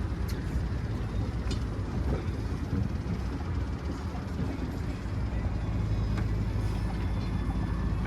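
Boat motor running steadily underway, with wind and water noise over it; the low engine hum becomes steadier and a little louder about five seconds in.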